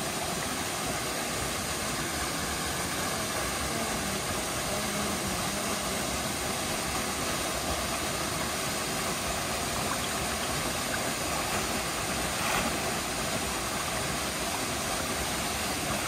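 Steady rush of a small waterfall spilling into a rock pool, with a swimmer splashing in the water.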